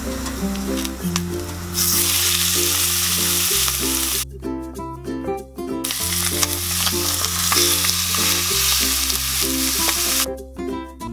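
Boneless chicken thighs sizzling loudly in hot oil as they are laid skin side down in a frying pan to sear. The sizzle jumps up about two seconds in, drops away briefly around four seconds, and comes back until near the end. Ukulele background music plays underneath.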